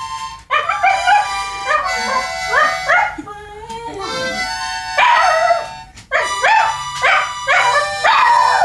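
A Shiba Inu howling along to a harmonica, its voice sliding up and down in pitch over the harmonica's notes.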